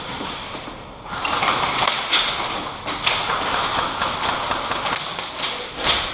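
Rustling and scattered light taps from a player moving about with gear, growing louder about a second in.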